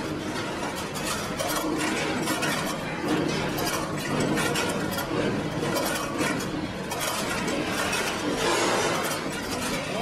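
Automated bicycle wheel truing machine at work: a continuous rattle of small metallic clicks and clinks as its nipple keys tension and true the spokes.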